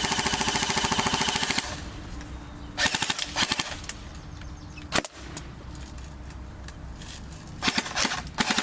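CYMA Thompson electric airsoft gun firing bursts on full auto, its metal gearbox cycling at a fast rate of around 18 to 20 BBs a second. A burst of about a second and a half opens, a shorter one comes about three seconds in and another near the end, with a single sharp click about five seconds in.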